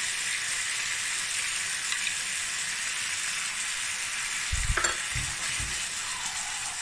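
Diced chicken breast and broccoli sizzling in coconut oil in a frying pan while a curry and coconut-milk paste is spooned in and stirred; a steady sizzle, with a few dull low knocks and a click about two-thirds of the way through.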